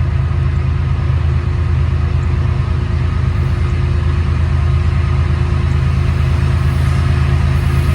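Diesel freight locomotive engine running at a steady throttle, a loud, even low drone with a constant hum above it.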